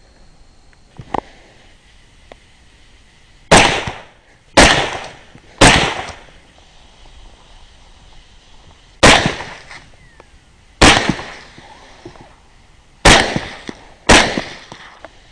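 Rifle shots fired at feral hogs: seven sharp reports in quick groups, three about a second apart, then two, then two more, each with a short echoing tail.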